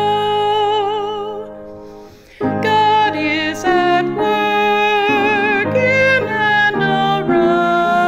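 Church hymn music with a voice holding a note with vibrato over a sustained chord, which fades away over about two seconds. After a brief dip a new phrase begins, with the melody moving from note to note.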